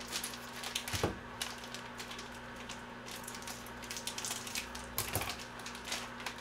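Plastic noodle packets crinkling and rustling while they are snipped open with kitchen scissors and the noodle blocks pulled out, with many small clicks and two sharper ones, about a second in and about five seconds in.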